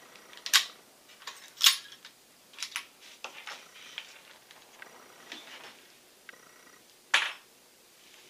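Bolt-action Ruger M77 Hawkeye Guide Gun being handled after a shot: its bolt worked to eject the spent .416 Ruger case, then the rifle laid down on the bench. Sharp metallic clacks about half a second and a second and a half in, smaller clicks and knocks between, and another sharp clack near the end.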